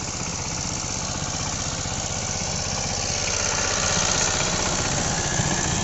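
12 hp Changchai single-cylinder diesel engine of a Dongfeng power tiller running steadily with a rapid, even exhaust beat as it pulls the rotary tiller through flooded paddy mud. It grows louder around the middle as the engine comes close.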